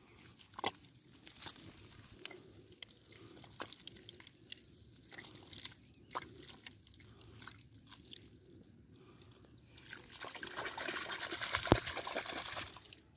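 Bare hands digging and squeezing through wet mud and shallow water: scattered squelches and wet smacks, then a louder few seconds of sloshing from about ten seconds in.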